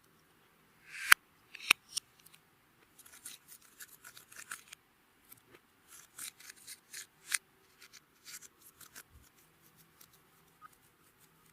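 Clear slime being squished and worked by hand, giving sharp sticky clicks and pops, two louder ones about a second in, then a run of smaller crackles that thins out near the end.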